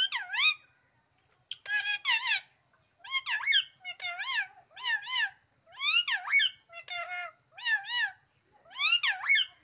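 Caged pet parakeet shouting in a string of loud, high, harsh calls, about one burst a second, many of them pairs of falling notes, which the owner hears as "kaun hai, kaun hai" ("who is it, who is it"), an alarm at the strangers nearby.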